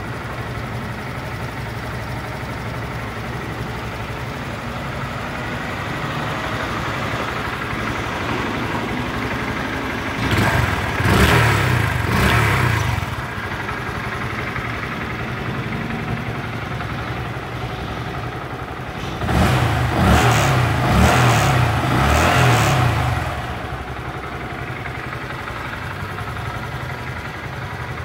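Honda Grom 125's small air-cooled single-cylinder engine idling steadily, revved with throttle blips in two spells, about ten seconds in and again about twenty seconds in.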